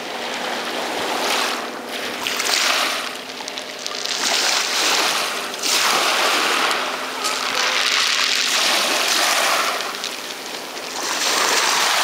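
Waves washing over a shingle beach: a rushing hiss that swells and fades every two to three seconds.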